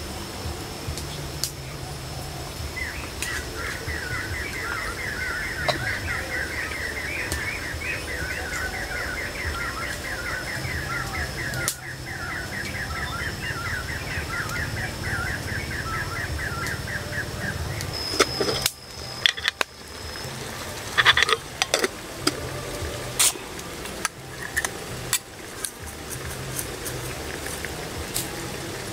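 Forest ambience: a rapid, pulsing animal trill that lasts about fifteen seconds over a steady high whine. In the last ten seconds the trill is gone and scattered sharp clicks and knocks are heard.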